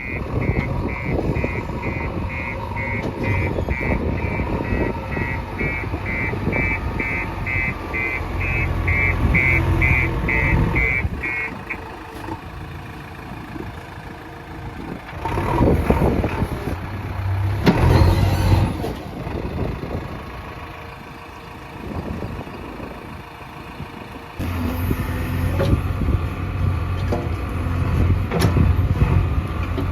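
JCB 3DX backhoe loader's diesel engine running under working load, with a reversing alarm beeping about twice a second for the first eleven seconds. The engine then drops to a lower level, surges loudly twice, and comes back up suddenly near the end.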